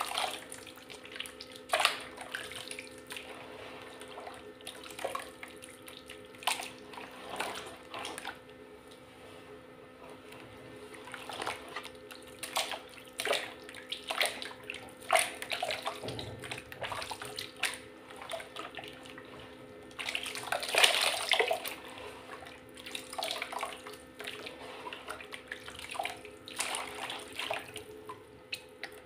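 Hands squeezing and kneading thin, watery mud in a plastic basin, making irregular wet squelches and splashes. There is a longer run of sloshing about twenty seconds in.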